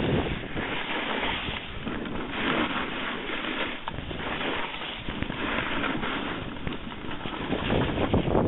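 Snowboard edges scraping and hissing over snow on a fast descent, swelling and fading every second or two with the turns, with wind rushing on the microphone.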